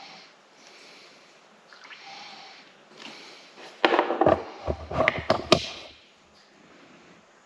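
Handling noise as the plastic basin of drained heating water and the camera are moved: a cluster of knocks and rubbing from about four to six seconds in, after a few seconds of faint hiss.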